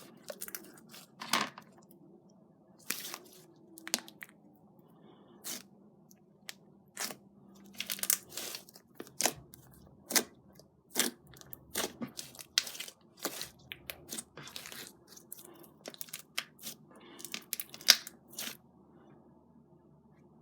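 Slime being squeezed and stretched by hand, giving irregular sharp pops and crackles, a few of them louder.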